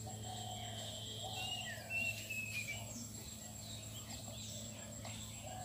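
Birds chirping and calling, with a run of short high whistled notes in the first half, over a steady low hum.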